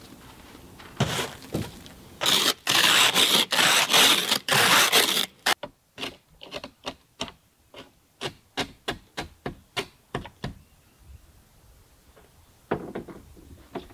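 Snow brush sweeping snow off a car: a few long, loud strokes, then a quick run of about a dozen short strokes, roughly three a second, across the window glass, heard from inside the car.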